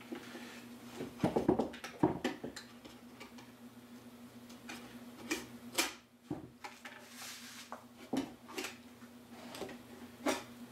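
Wooden hive parts being handled on a workbench: scattered knocks, taps and short scrapes of wood on wood. A steady low hum runs underneath.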